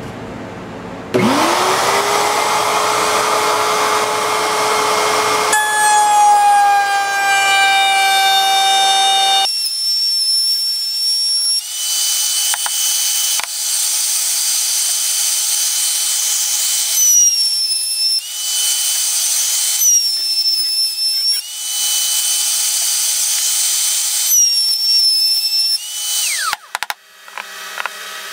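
A router in a router table is switched on and spins up to a steady high whine, then cuts old barn wood. The board is fed past the bit in several loud passes, and the motor's pitch dips under load at each one. Near the end the router is switched off and winds down.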